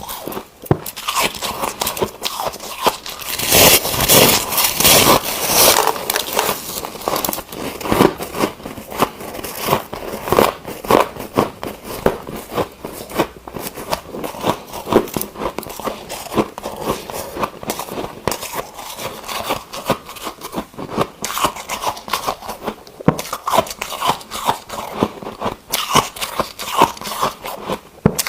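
Ice being bitten and chewed close to the microphone: dense, irregular crunching and crackling of breaking ice, heaviest a few seconds in.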